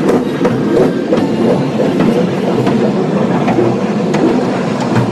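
Scenic World's Scenic Railway carriage running along its steep track, heard from on board: a steady rumble of wheels on rail with irregular clicks and clacks.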